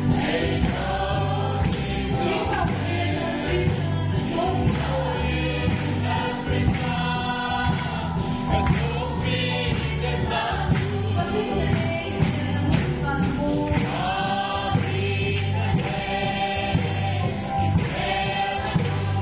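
A large congregation singing a gospel worship song together, many voices at once, over a steady deep musical accompaniment.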